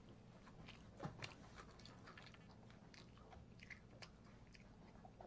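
Faint chewing of food in the mouth: a scatter of soft, quiet mouth clicks, one a little louder about a second in.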